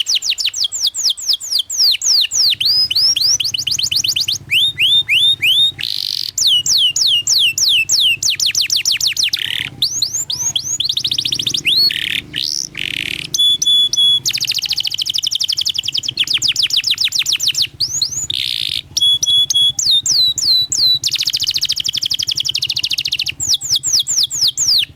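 Domestic canary singing a long, unbroken song of fast rolled trills and rows of quick downward-sweeping chirps, one phrase straight after another.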